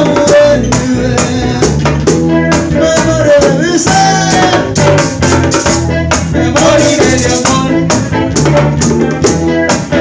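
Live bachata band playing: guitars and electric bass over a drum, with the güira's metal scraping keeping a steady beat.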